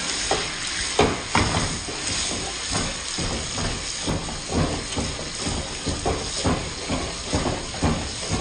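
Beef sizzling in a hot frying pan: a steady hiss broken by irregular crackles and pops.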